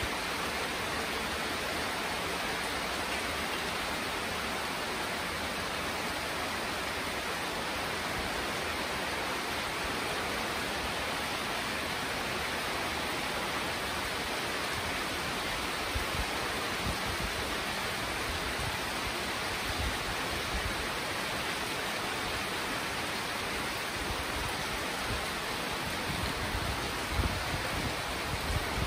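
Heavy monsoon rain pouring steadily onto trees, foliage and a wet gravel yard, an even hiss. In the second half a few brief low thumps break through.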